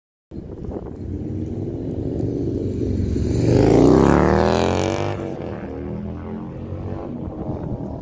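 Harley-Davidson Dyna Super Glide's V-twin, built to 95 cubic inches with high compression, 510 cams and an S&S Super E carburettor, running through a Supertrapp SuperMeg exhaust as the bike rolls on the throttle in first gear and passes close by. The engine note rises in pitch and swells to its loudest about four seconds in as the bike goes past, then drops and fades as it rides away.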